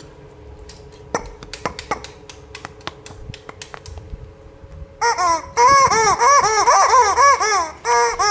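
Scattered light clicks and taps, like plastic toy parts being handled, then about five seconds in a loud high-pitched, laughter-like sound of quick rising-and-falling notes, repeating with a short break near the end.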